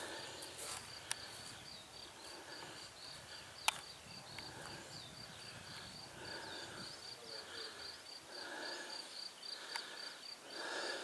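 Crickets chirping steadily, an even run of short high chirps about four a second. Two sharp clicks cut through, a light one about a second in and a louder one nearly four seconds in.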